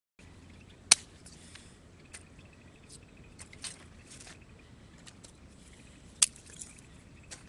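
Campfire crackling, with two loud sharp pops, about a second in and about six seconds in, and fainter crackles between them.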